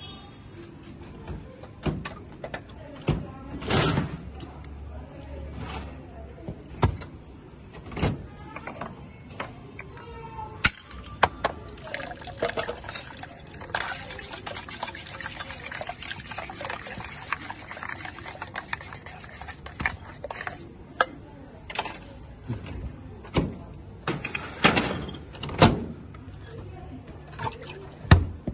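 Carbonated soda poured from a glass bottle into a steel pot, fizzing hard: a dense hiss that starts abruptly about a third of the way in and lasts about ten seconds. Before and after it come scattered sharp clinks and knocks of glass and steel vessels being handled.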